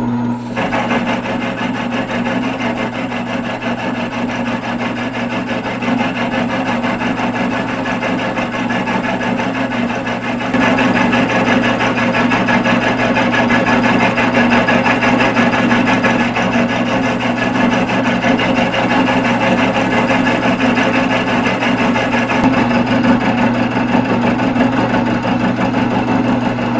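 Bench-top mill-drill cutting dry into a cast iron Cat 3406 flywheel with an end mill: a steady machine hum with the rough noise of the cut over it, getting louder about ten seconds in.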